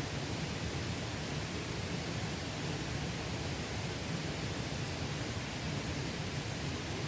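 Mountain valley stream rushing steadily, an even water rush with a fuller low rumble underneath and no breaks.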